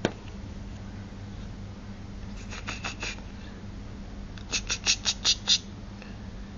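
A sharp click, then short, high, squeaky kissing sounds made with the lips, the way an owner calls a hamster: a quick run of four about two and a half seconds in, and six more about four and a half seconds in, over a low steady hum.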